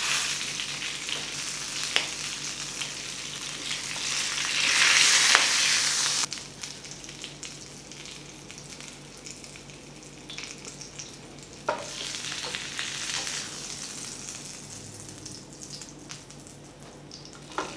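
Hot fried chicken pieces and their oil sizzling as they are moved with wooden spatulas onto steaming rice in the pot, with a few light taps of the spatulas. The sizzle swells about five seconds in and falls away sharply about a second later, then comes back fainter.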